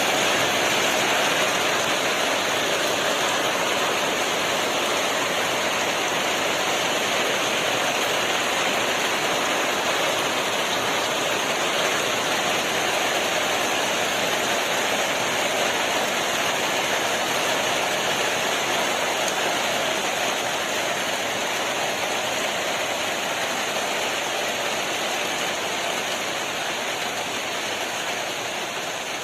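Heavy rain pouring down steadily as a dense, even hiss, easing slightly near the end.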